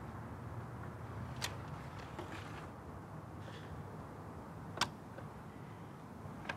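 Plastic CD jewel case being opened and the disc handled: three short sharp clicks, the loudest about five seconds in, over a low steady background hum.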